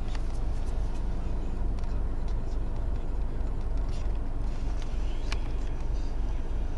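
Steady low rumble of idling diesel and vehicle engines, heard from inside a car, with a few faint scattered clicks.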